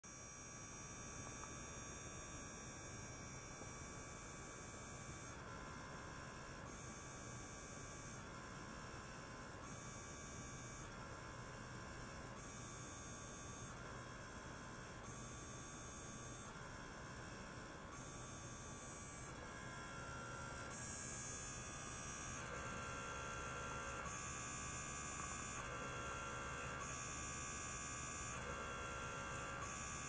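Small liquid-circulation pump running with a steady hum. About five seconds in, a higher hiss and several steady tones start switching on and off in a regular cycle, roughly every one and a half seconds, as the pump's flow of water and air alternates.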